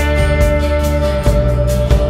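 Background music led by guitar, with sustained notes over a steady beat.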